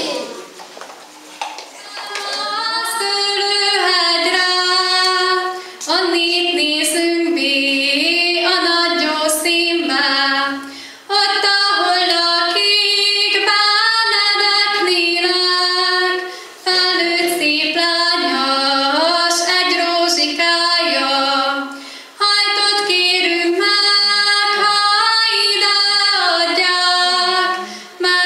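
A girl singing solo in a single voice, in long sung phrases with a short break for breath about every five to six seconds.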